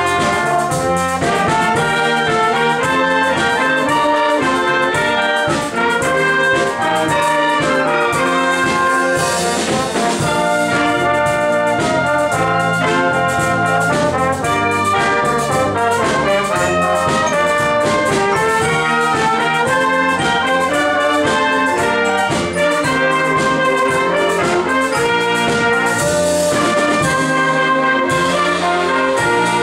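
Amateur wind band playing live: trumpets, trombones, saxophones and flutes together in a pop-song arrangement with a steady beat, without a break.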